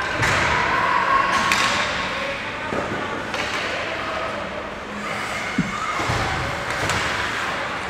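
Ice hockey play echoing in an indoor rink: skates scraping on the ice, a few sharp knocks of sticks and puck, and players' voices calling out.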